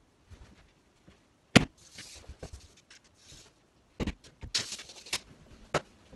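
Steel tape measure being handled while checking a cabinet carcass for square: a few sharp clicks and knocks with short scraping rushes in between as the blade is stretched out and slides back.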